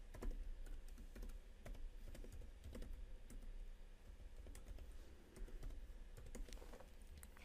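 Typing on a computer keyboard: an irregular run of quiet keystroke clicks.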